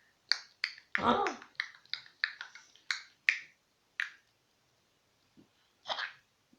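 A child making sharp clicking and popping noises with his mouth and tongue, about a dozen in quick, uneven succession, with a short voiced sound among them about a second in. Near the end, after a pause, come two softer clicks.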